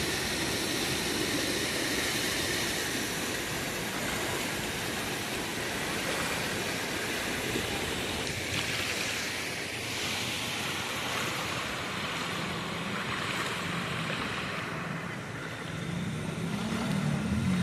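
Steady rush of floodwater pouring over a submerged causeway. A motor engine hum comes in about two-thirds of the way through and grows louder near the end.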